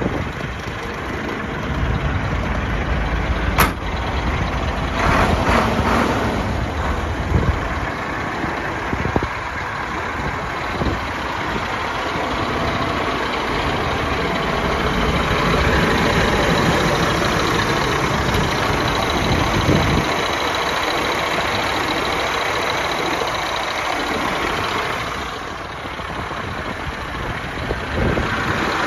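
Diesel engine of a Ford L8000 truck idling steadily, with a single sharp click about three and a half seconds in.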